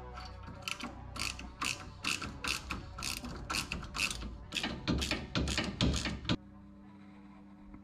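Hand socket ratchet clicking in quick strokes as a nut on the front suspension is tightened. The clicks stop abruptly a little over six seconds in.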